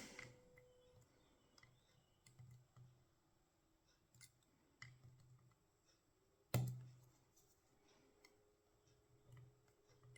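Faint scattered clicks of a tubular hex-core lock being picked under tension, with one sharper click about six and a half seconds in that rings briefly.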